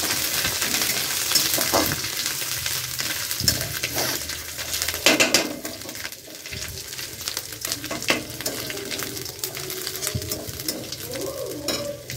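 Ginger paste and whole spices sizzling in hot oil in a metal kadai, with a flat metal spatula scraping and tapping against the pan as it is stirred.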